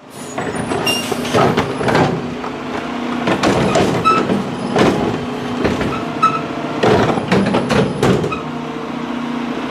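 Mack LR garbage truck with a McNeilus Meridian body, its engine running steadily, with a string of sharp metallic clanks and bangs as carts and recycling tubs are handled and dumped.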